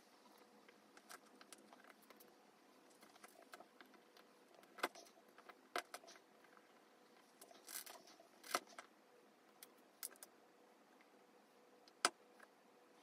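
Faint, sharp clicks of tiny plastic mini-blocks being pressed and snapped together by hand, with light rattling of loose pieces. The clicks come irregularly, a few louder than the rest, the loudest near the end.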